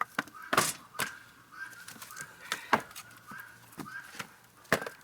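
Cut pieces of slab firewood knocked together in about five sharp wooden knocks at uneven intervals, shaking the sawdust off them.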